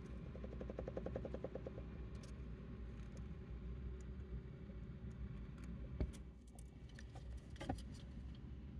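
A hamster chewing food, a rapid run of tiny crunching ticks for the first two seconds, then two sharper clicks about six and nearly eight seconds in.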